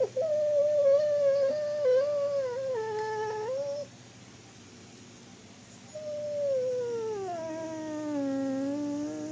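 A sleeping dog whining in long, high, wavering calls while it dreams. There is one call of about three and a half seconds, then a pause of about two seconds, then a second long call that slides down in pitch and carries on past the end.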